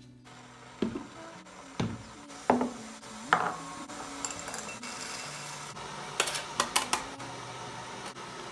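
Kitchenware being set down and handled on a wooden countertop: four separate knocks, each with a short ringing tail, then a quick run of clicks and clatter near the end.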